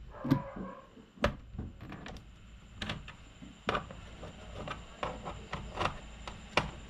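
A screwdriver undoing the screws on a laptop's plastic bottom case: about seven sharp, irregular clicks and taps of the tool and screws against the case.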